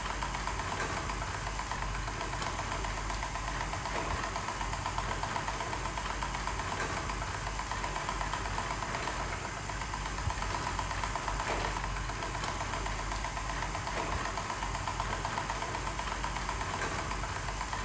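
Home-made speaker-magnet generator rig running: the spinning magnet rotor, belt pulley and small brushed DC motor make a steady mechanical whir with a fast, even rattle.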